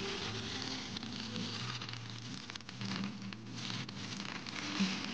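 Smoking-hot peanut oil sizzling and crackling as it is poured over wet cilantro and steamed fish.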